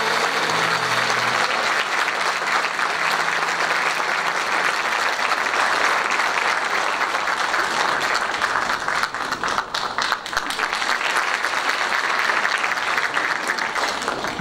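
Audience applauding loudly after a song, with the ensemble's last notes dying away in the first second or two. The clapping thins briefly about two-thirds of the way through, picks up again, then stops abruptly at the end.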